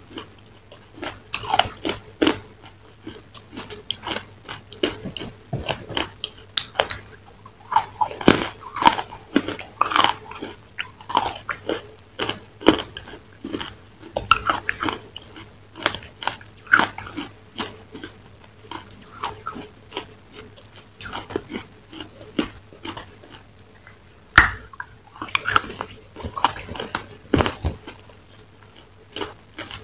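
Close-up biting and chewing of crunchy, brittle food: irregular sharp crunches and cracks in quick succession, with one especially sharp crack about three-quarters of the way through, over a faint steady hum.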